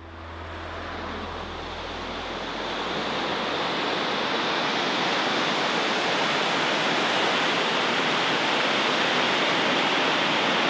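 Waterfall: a steady, even rush of falling water that swells up over the first few seconds and then holds.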